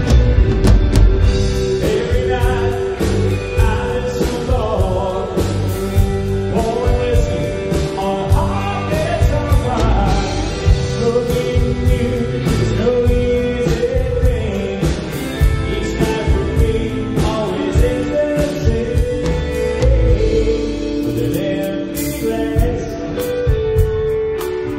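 A live band playing a song, with drums keeping a steady beat under a melody line and singing.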